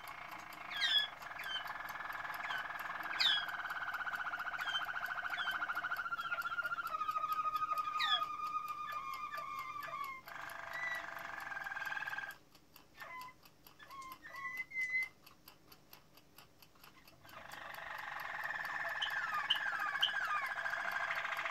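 Domestic canary singing: long rolling trills held on one pitch, stepping down in pitch twice and crossed by quick falling notes. The song breaks off for a few seconds in the middle, leaving only a few short notes, then starts again.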